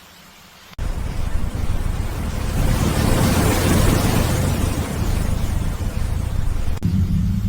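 Ocean waves surging and washing in: a loud rush of water with a deep rumble that starts suddenly about a second in, swells to a peak mid-way, eases, and cuts off near the end.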